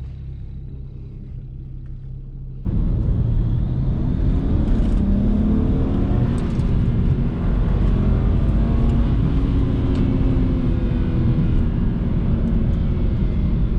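BMW 335i's N54 twin-turbo inline-six running steadily at low load, then about three seconds in going to full throttle. It pulls hard, its note rising in repeated sweeps, on boost the driver puts at about 18 psi.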